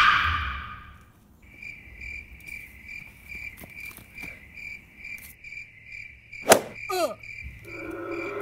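A cricket chirping steadily, about three high chirps a second, starting after a loud burst of noise fades out in the first second. About six and a half seconds in comes a sharp click, then a short wavering sound that falls in pitch, and music starts near the end.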